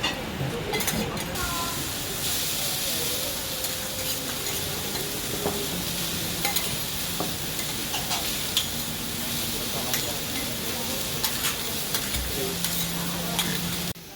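Food sizzling on a hot teppanyaki griddle, a steady frying hiss with scattered light clicks of metal utensils.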